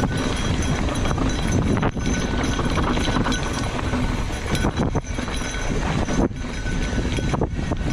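Mountain bike descending a rough dirt trail: a steady rattling rumble of tyres over dirt and rock and the bike clattering over the bumps.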